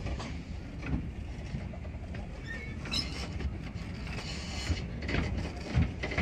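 Romney, Hythe and Dymchurch Railway miniature train running slowly, heard from on board: a steady low rumble with a few short knocks from the wheels and carriage.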